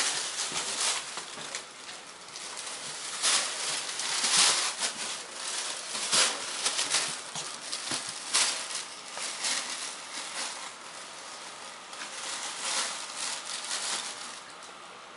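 Thin plastic shopping bag crinkling and rustling around a walking cat's hindquarters: irregular crackles and scrapes, dying down near the end.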